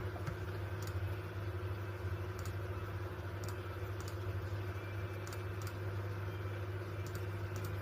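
Scattered light clicks at a computer, about a dozen at irregular intervals, over a steady low electrical hum.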